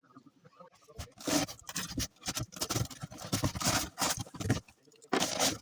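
Hands scraping and rustling diecast model car packaging as a box is unboxed, in irregular bursts with a few sharp clicks.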